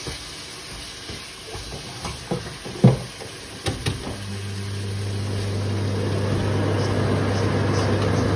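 A few light knocks of kitchenware. About four seconds in, an electric kitchen appliance switches on and runs with a steady low electrical hum and a rushing of air that grows louder.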